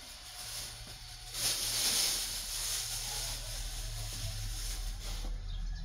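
A hiss that comes in about a second in and lasts some four seconds, over a low steady hum.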